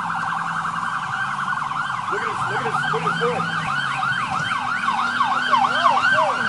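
Police siren in yelp mode: a rapid rising-and-falling wail, about three sweeps a second.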